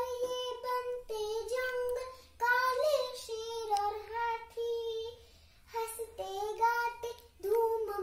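A young girl singing a Hindi children's poem in held, sing-song phrases, with short breaks between lines.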